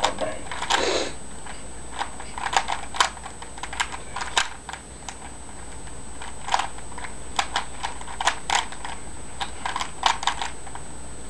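Rubik's cube being turned by hand: irregular sharp plastic clicks, coming in quick clusters with short pauses.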